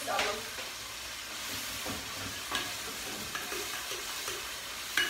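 Food sizzling in a frying pan on the stove, a steady hiss, with a few light knocks and scrapes of stirring.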